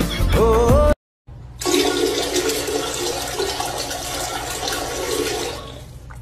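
Music with singing cuts off about a second in. After a short gap comes a steady rush of water lasting about four seconds, fading near the end.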